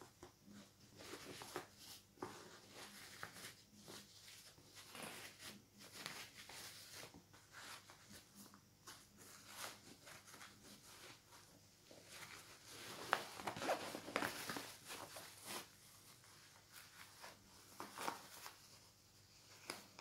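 Faint, irregular rustling and scraping of a Victorinox Altmont laptop backpack's fabric, lining and straps being handled, busiest about two-thirds of the way through.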